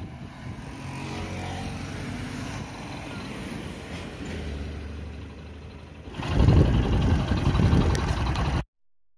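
Vehicle engines running close by on a road, a steady low engine hum under the traffic noise. About six seconds in, a much louder, rough low rumble starts, then the sound cuts off abruptly.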